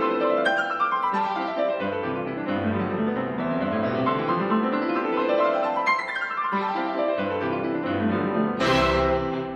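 Background piano music playing quick runs of notes that sweep up and down the keyboard, with a brief bright flourish near the end.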